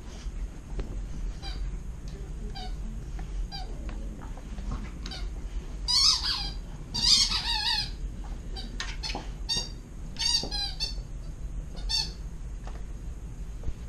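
Purple plush hedgehog squeaky toy squeaked over and over as an Alaskan Malamute chews it: short squeaks about twice a second at first, two longer, louder squeaks about six and seven seconds in, then quick runs of squeaks.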